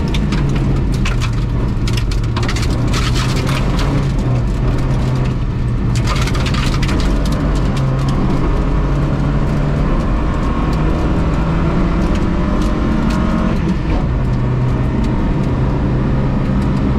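Rally car's engine running hard under load on a gravel stage, heard from inside the cabin, its note jumping abruptly to a new pitch about fourteen seconds in. Loose gravel crackles against the underside in spells, about a second in and again around six seconds.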